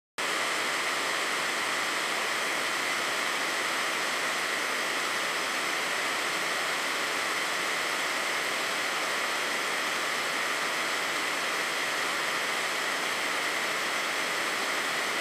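Blowtorch flame hissing steadily, held on a jawbreaker to melt it.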